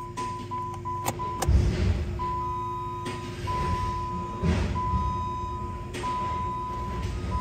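Dashboard warning chime of a 2013 Chrysler 200 beeping, first in quick short beeps and then in longer repeated tones. Two clicks come just after a second in as the key is turned, then a low rumble from the 2.4L inline-four being cranked over for starting.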